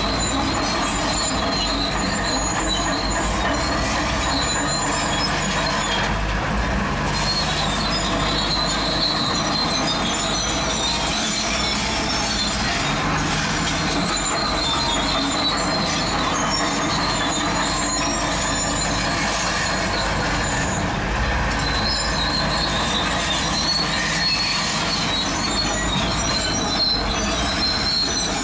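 Zoomlion crawler bulldozer working: its diesel engine runs steadily under a continuous high-pitched metallic squeal from its steel tracks.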